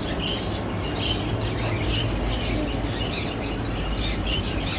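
Small birds chirping in quick repeated short calls over a steady hiss and low hum.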